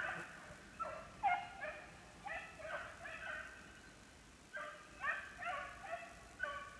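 A pack of rabbit-hunting scent hounds, beagles and Basset Fauves, baying in several overlapping voices in bouts about every second. This is hounds giving tongue on a rabbit's trail.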